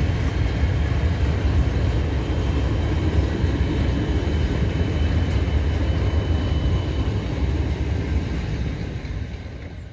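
Freight train's flat wagons rolling past on the rails with a steady rumble, fading near the end as the last wagon goes by.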